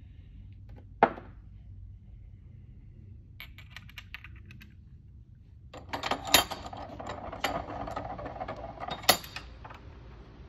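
Small metal parts being handled on a workbench: a sharp click about a second in, a few light ticks, then a few seconds of clinking and rattling with two sharp clacks.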